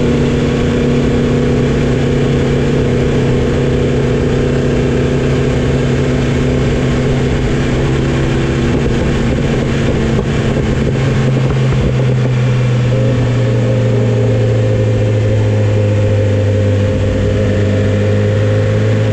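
Motorcycle engine running at a steady pace, with a rush of wind noise over it. The engine note drops a little about twelve seconds in and holds there.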